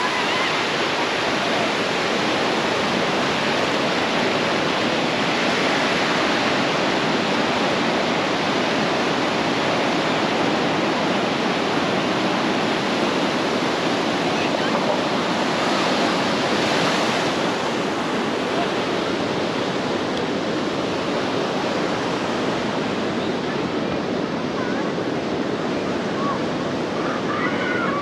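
Ocean surf washing in steadily, with a couple of waves swelling louder.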